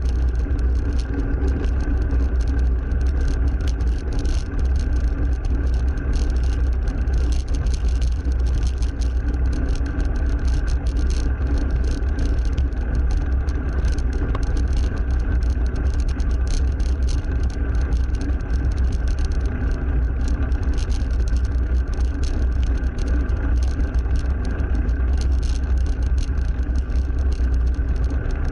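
Steady wind and road noise of a cross bike being ridden along a main road, with car traffic. A deep, even rumble runs throughout, with no distinct events.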